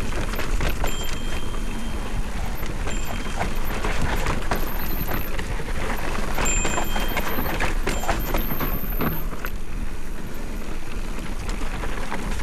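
Electric mountain bike riding down a rough dirt trail: wind rumbles on the action-camera microphone while the tyres, chain and frame clatter and rattle over the ground. A short high-pitched squeal comes and goes several times.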